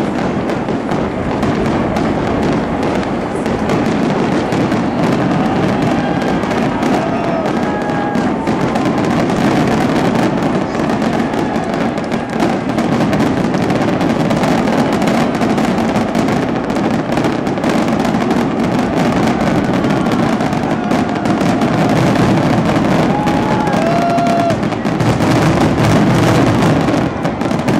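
A fireworks finale barrage: aerial shells bursting and crackling in rapid, continuous succession, the bangs overlapping with no gaps, a little louder near the end.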